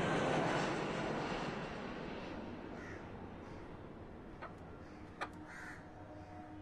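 Jet airliner passing overhead, its engine noise loudest at the start and fading steadily away. A couple of short bird calls and a few sharp clicks come in the second half.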